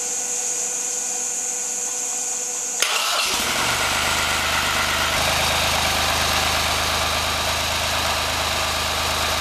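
A steady hiss, then a click about three seconds in, and the tractor's engine starts on its first-ever run and settles into a steady idle.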